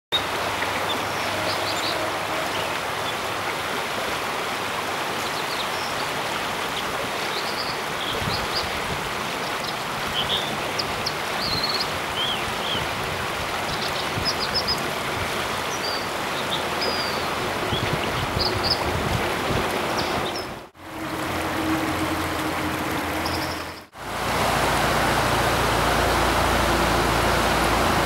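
Rushing mountain stream with an American dipper singing over it: many short, varied whistles and trills through most of the first twenty seconds. The sound cuts out briefly twice near the end, after which the rush of water is louder and deeper.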